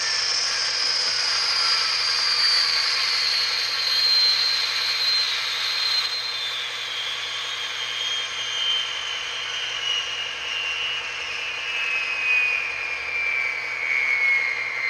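HO-scale model gas-turbine locomotive's ESU LokSound V5 sound decoder playing its turbine shutdown sound through the model's speakers. A loud jet-like rush carries a whine that falls slowly in pitch as the turbine winds down.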